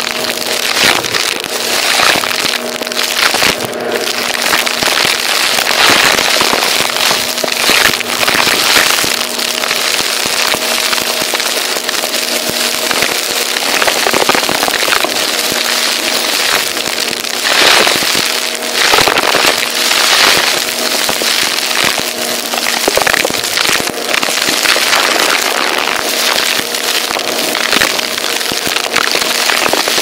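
Vacuum cleaner running over a rug strewn with crunchy dirt: the grit crackles and pops densely as it is sucked up, over the steady hum of the motor.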